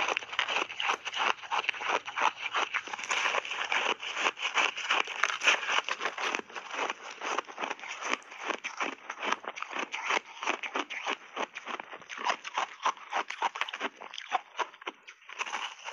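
Reshaped ice (crushed ice refrozen with mixed fruit) crunching as it is bitten and chewed in big mouthfuls, close to the microphone: rapid crackling crunches packed one after another, easing briefly near the end.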